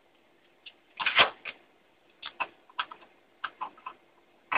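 Irregular sharp clicks and knocks of computer hardware being handled, with a loud clatter about a second in and scattered single clicks after.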